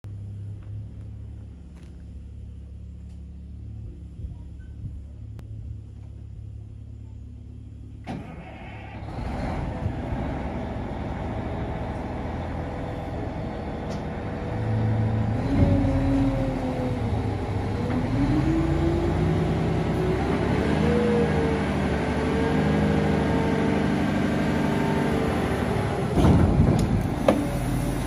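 Wheel loader's diesel engine idling, then picking up about eight seconds in. From about halfway its note rises and falls as the hydraulics lift the bucket, with a few sharp knocks near the end.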